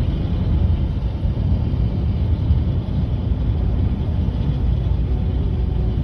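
Steady low rumble of road and engine noise heard from inside a moving road vehicle's cabin as it drives along an asphalt road.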